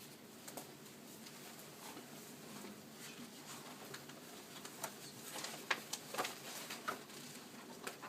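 Faint room noise with scattered light clicks and taps, coming more often from about five seconds in.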